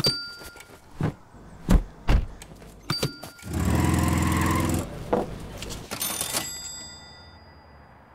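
A run of edited sound effects: a sharp click, two heavy low thuds, another click, then a car engine running briefly as the hearse pulls away. About six seconds in, a bright ringing hit sounds and fades away.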